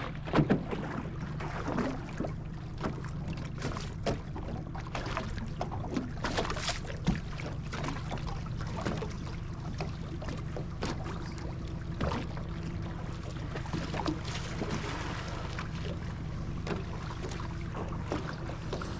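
Boat outboard motor running steadily at low revs, with scattered light knocks and splashes of water against the hull.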